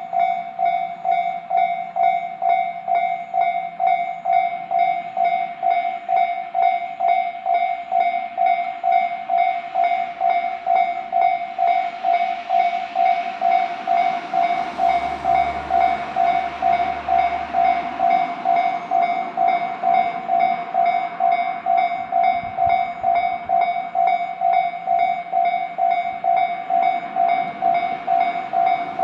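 Japanese level-crossing warning bell ringing steadily, about two strikes a second. From about twelve seconds in, a JR West 105 series electric train passes the crossing, its running noise swelling and then fading by about twenty seconds.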